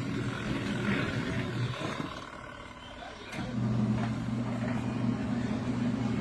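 Motor of a COSTWAY portable mini twin-tub washing machine humming as it runs. It dies away for about a second and a half in the middle, then starts up again.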